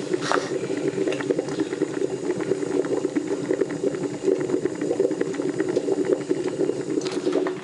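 Water boiling hard in a Sunbeam C30 Coffeemaster vacuum coffee maker: a steady bubbling with a rapid, dense crackle.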